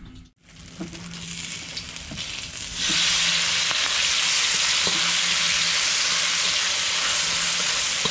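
Food sizzling in a hot frying pan. About three seconds in, the sizzle suddenly gets much louder and then holds steady.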